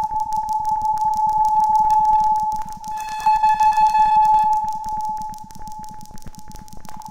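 Electronic sound from a Reaktor software synthesizer: a steady whistling tone under a fast, even stream of crackling clicks. About three seconds in a brighter, buzzier layer of overtones joins for a second and a half, and the whole swells and fades in loudness.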